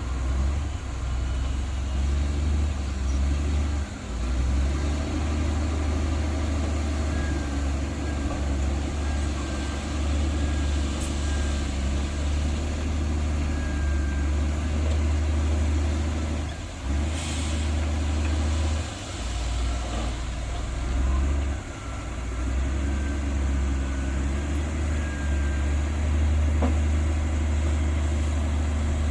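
Heavy diesel engine of earthmoving machinery running with a steady low drone, dipping briefly a few times.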